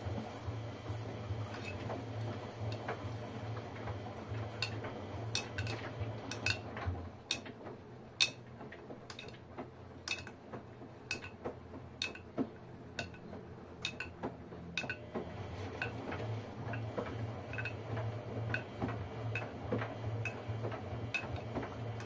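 LG front-loading washing machines tumbling a wash load: a low motor hum that fades in the middle and comes back, with many irregular sharp clinks and clicks from the tumbling laundry and drums.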